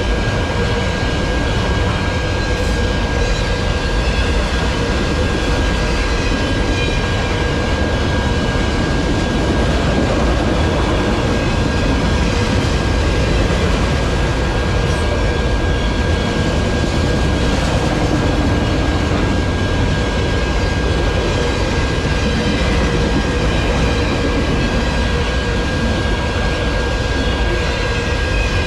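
Freight train's autorack cars rolling steadily past on the rails, a continuous loud rumble and rattle of wheels and couplings. A thin steady high tone runs over it.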